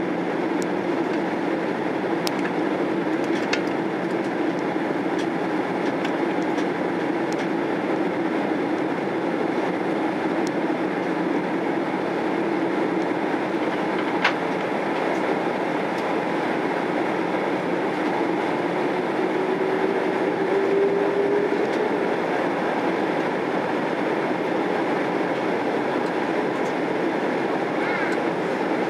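Steady cabin noise of a Boeing 767-300 airliner in descent, heard from a seat behind the wing: the rush of jet engines and airflow with a low hum that rises slightly in pitch around twenty seconds in. A single sharp click about halfway through.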